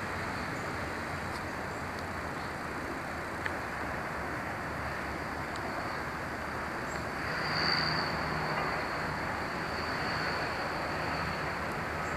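Steady outdoor background noise, an even rushing hiss that swells for a couple of seconds about eight seconds in, with a faint low hum at that point. There is a single small click a few seconds in.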